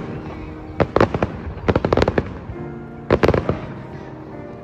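Fireworks going off in three rapid crackling volleys, over background music.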